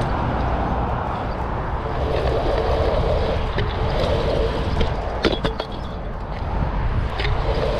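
Stunt scooter's wheels rolling along a damp tarmac path: a steady rolling noise with a low rumble, a faint hum that comes and goes, and a few small clicks from bumps.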